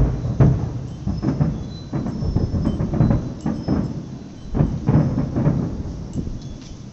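Aerial fireworks shells bursting in an uneven series of deep booms, loudest at the start.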